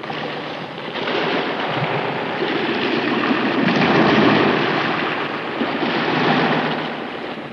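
Sea waves washing over rocks: a rushing surf noise that starts abruptly, swells to a peak about four seconds in and again around six seconds, then falls away.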